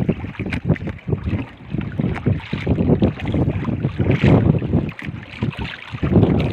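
Wind buffeting the microphone in irregular gusts, with water slapping and knocking against the hull of a small wooden outrigger boat.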